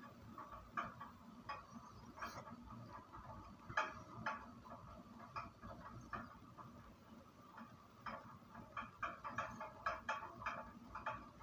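Computer keyboard keystrokes and mouse clicks: quiet, irregular taps, with a quicker run of them about eight to eleven seconds in.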